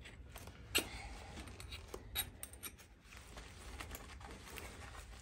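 Faint metal-on-metal scraping and clicking as a nail is worked into a hole saw to pry out the wooden plug stuck inside it, with a couple of sharper clicks about a second in and again about two seconds in.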